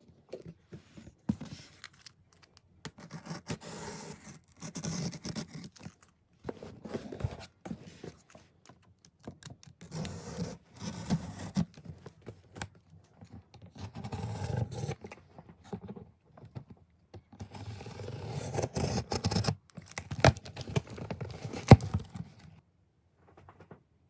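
Intermittent scraping, rustling and tearing of things being handled, in short bursts with gaps between them and a few sharp clicks and taps, loudest about 22 seconds in.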